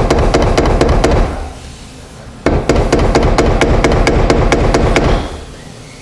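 Rapid tool strikes on the fuel tank and pump module of a 2007 Hyundai Santa Fe, several a second, in two bursts with a pause of about a second between them. He is beating on the tank to jar the fuel pump, which has an open circuit, into running.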